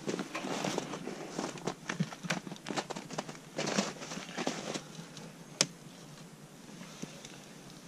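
Crunching, scraping and light knocking of a snow-covered polyurethane-foam beehive roof being lifted off and set aside, baring the ventilated inner lid. The handling noises die away about five seconds in, followed by one sharp click.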